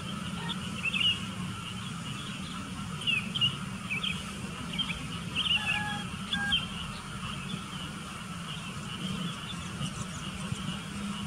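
Sooty-headed bulbuls chirping, with quick short calls that thin out after the first two-thirds. A steady low rumble runs underneath.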